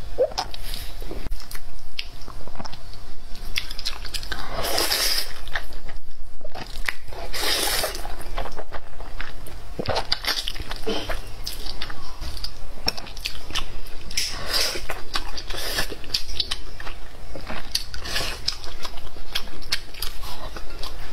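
Close-up eating sounds: bites of soft-boiled egg, slurping of spicy instant noodles and chewing, as a run of short clicks and several longer slurps.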